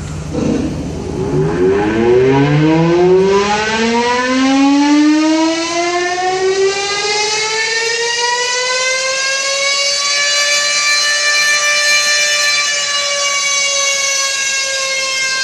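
Mechanical wind-up siren starting low, rising steadily in pitch over about eight seconds to a high steady wail, then holding there, sounded as a farewell salute as the fire truck carrying the coffin passes the fire station.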